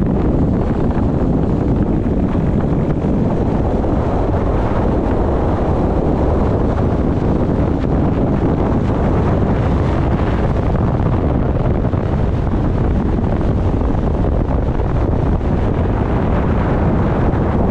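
Loud, steady wind rumble on the microphone, unbroken throughout.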